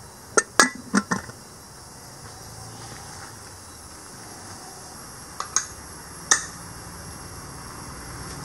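Aluminium pressure cooker lid being fitted and closed on the pot: a quick run of four sharp metal clicks and clinks in the first second or so, then three more clicks between about five and six seconds in.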